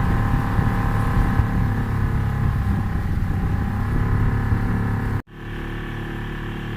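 Motorboat engine running steadily. About five seconds in the sound cuts off abruptly, and a quieter, steadier engine hum follows.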